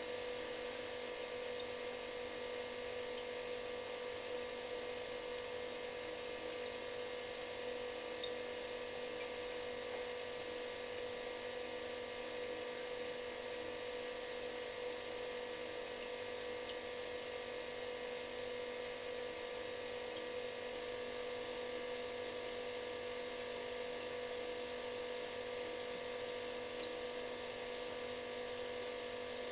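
Refrigerator running: a steady hum with one strong mid-pitched tone over several fainter tones and a layer of hiss.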